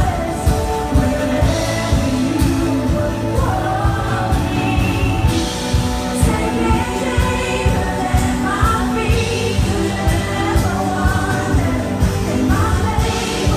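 A worship band playing a contemporary worship song with a singer's voice over a steady beat, heard from the audience through the hall's sound system.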